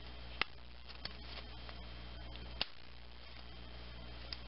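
Plastic cover of a Toyota remote ignition key being snapped on and handled: four small sharp clicks, the loudest about two and a half seconds in, over a steady low hum.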